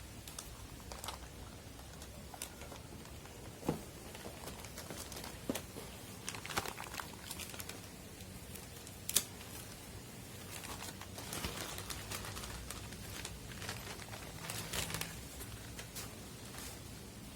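Computer-part packaging being handled: intermittent crinkling and rustling with scattered sharp clicks and taps, the sharpest about nine seconds in.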